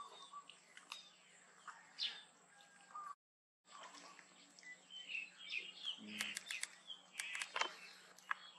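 Small birds chirping in the background, many short high chirps, with a few light clicks and taps among them. The sound cuts out completely for about half a second a third of the way through.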